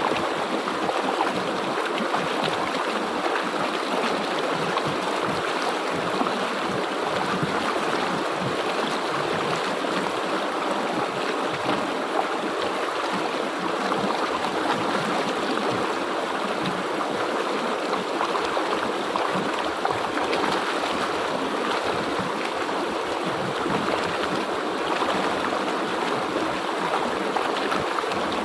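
River water flowing steadily over rocks, a continuous rushing and gurgling with no changes.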